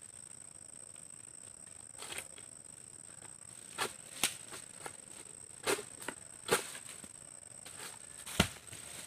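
A steady, high-pitched insect drone, with about half a dozen sharp cracks and rustles scattered through it. The loudest crack comes near the end.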